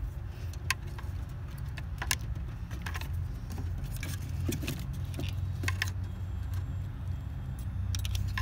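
Scattered light metallic clinks and clicks of tools and wiring being handled during a wiring repair, over a steady low hum.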